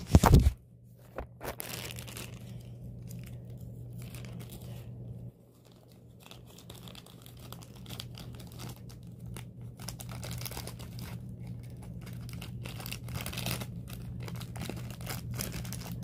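Close rustling and crinkling as something is handled and stuffed into a small space near the microphone, opening with a knock, over a steady low hum.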